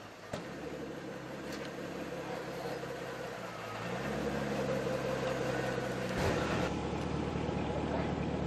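Supercar engine idling steadily; about four seconds in its pitch steps up and holds at a higher idle, and a sharp click comes about two seconds later.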